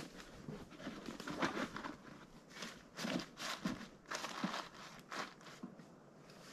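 Irregular crunching and rustling as a person moves about on dry ground and leaf litter, about a dozen short uneven bursts with the loudest around a second and a half, three, and four seconds in.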